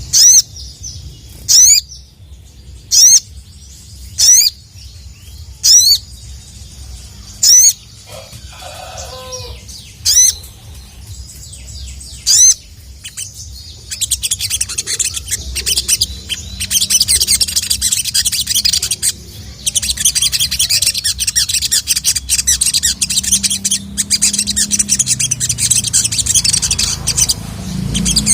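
Sogon (sogok ontong, little spiderhunter) calling, in a series of about eight loud, sharp "cuit" calls one to two seconds apart. About halfway through they give way to a fast, continuous high twittering chatter that carries on with short breaks.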